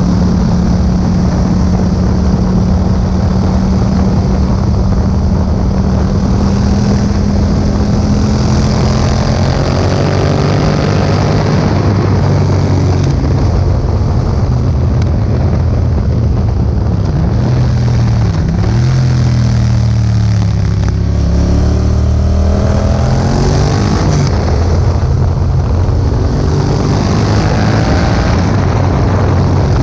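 2018 Yamaha MT-07's parallel-twin engine through an Akrapovic exhaust while riding: it holds a steady pitch for the first several seconds, then the pitch shifts, dips sharply a little past the middle and climbs again as the revs rise. Wind noise on the microphone runs underneath.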